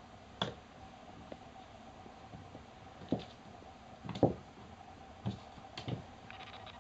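Kittens moving about and playing: a handful of soft, irregular thumps and taps, the loudest about four seconds in.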